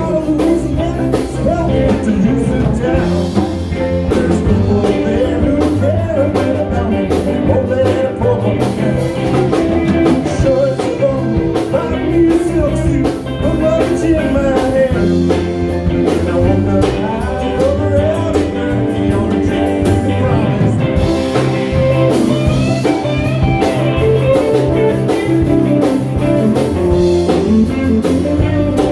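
A live band playing a blues-rock number, with guitar and drums.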